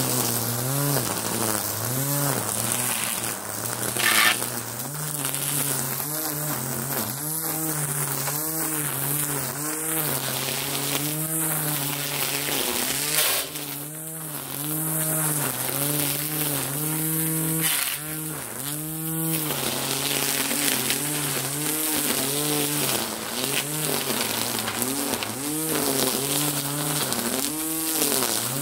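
String trimmer (weed eater) running and cutting overgrown grass and weeds, its motor pitch rising and falling over and over as it is throttled and loaded. There is one brief louder strike about four seconds in.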